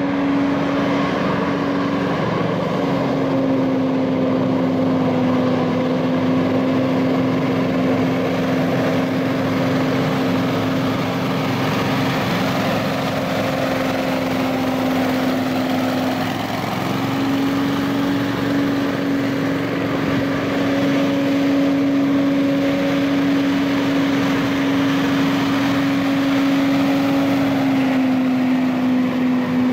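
Billy Goat Z3000 stand-on blower running at speed: its 35 hp Briggs & Stratton engine and large fan give a strong steady hum over a rush of air. The pitch dips briefly about halfway and drops slightly near the end.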